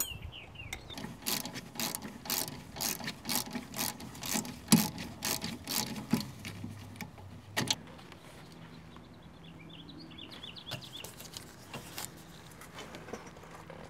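Ratchet wrench with a hex bit clicking in quick, even strokes, about three clicks a second, as it loosens a rear brake caliper guide-pin bolt. The clicking stops about eight seconds in, leaving only a few fainter tool clicks.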